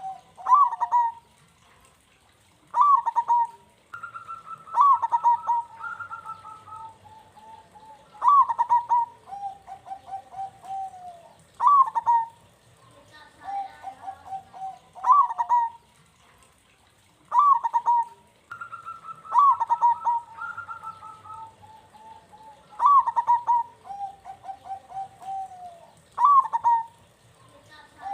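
Local zebra dove (perkutut) singing its cooing song: phrases that open on a sharp high note and run into a string of quick, rolling coos, repeated every few seconds.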